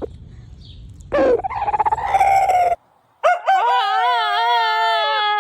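Two long rooster crows, the second starting about a second after the first ends, with a wavering pitch and a drop at the end.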